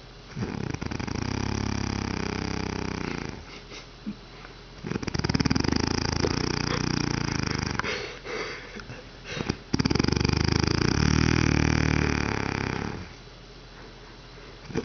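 Loud snoring: three long snores of about three seconds each, with a fast fluttering rattle. Short, quieter breaths come between them.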